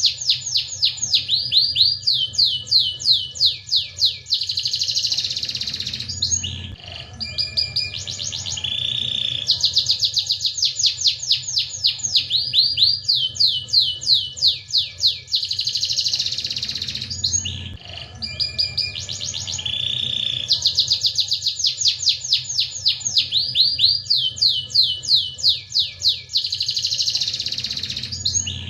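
Domestic canary singing long song phrases made of rapid rolling trills of falling notes, with a brief break about every ten seconds.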